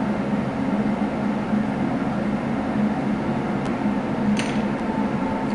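Steady low machine hum with a faint click about four and a half seconds in.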